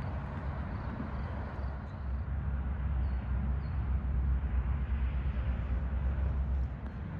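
Low engine rumble, swelling in the middle and cutting off abruptly near the end.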